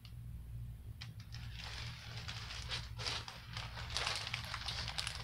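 Diamond painting canvas and its protective sheet rustling and crinkling as they are handled, starting about a second in and growing busier toward the end.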